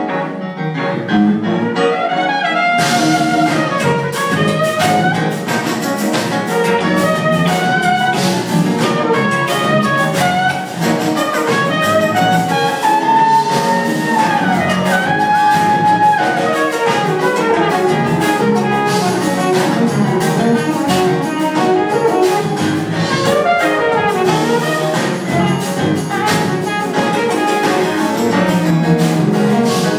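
Jazz-fusion band playing live, with a trumpet carrying the melody in held notes and falling slides over keyboards, electric guitar and drums.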